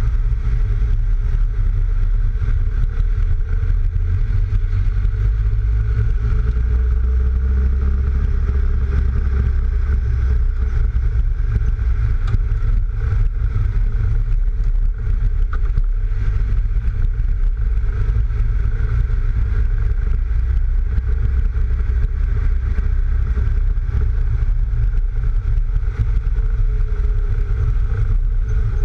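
A lowered Mk3 Volkswagen Golf driving steadily, heard from a camera mounted outside low by the front wheel: a heavy low wind buffeting on the microphone, which comes from the car's roof racks, over tyre and road noise and the engine running. The rumble swells for a few seconds about a quarter of the way in.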